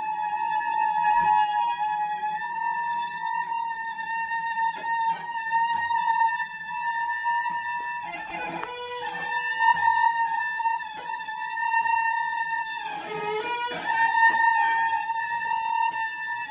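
Improvised experimental music: a bowed string instrument holds one long, high, steady note. About halfway and again near the end, noisy bursts break in and the pitch wavers and dips.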